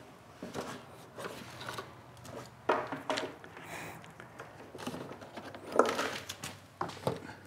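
Scattered light knocks and clunks with some rustling as equipment is handled and set down: a portable power station being placed on the floor and gear being moved about. Three sharper knocks stand out, about a third of the way in, about three-quarters in and near the end.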